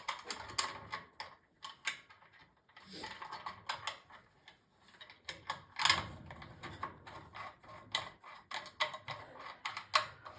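Irregular clicks and light knocks of small parts being handled as a furnace cover is closed and its clip fitted. The loudest knock comes about six seconds in.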